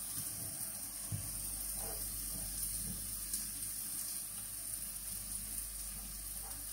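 Vegetables frying in oil in a pot (onion, carrot, leek, with diced bell pepper just added): a steady quiet sizzle, with a few faint taps.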